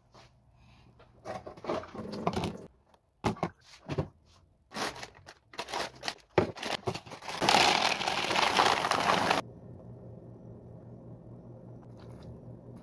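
Plastic bag of breakfast cereal crinkling as it is opened and handled, then dry cereal poured into a plastic bowl in a loud, dense rattle lasting about two seconds. After that comes a quieter stretch as liquid is poured over the cereal.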